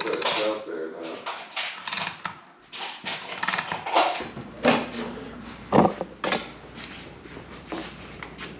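A metal hand tool clicking, knocking and scraping against a Wilwood brake caliper, a run of short, sharp clinks.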